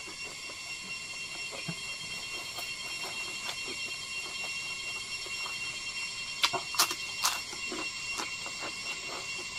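Close-up eating sounds of a man chewing a mouthful of rice, fried egg and bamboo shoots: soft wet chewing clicks, with three sharp crunches about six and a half to seven seconds in. A steady high-pitched whine runs underneath.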